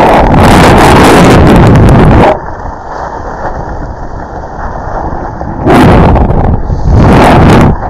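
Wind rushing over a camera microphone while skiing downhill, loud and rough, dropping to a quieter rush about two seconds in and then buffeting in two more loud gusts near the end.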